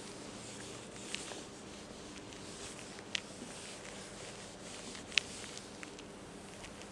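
Whiteboard eraser wiping across a whiteboard, a faint rubbing hiss, with three sharp ticks; the loudest comes about five seconds in.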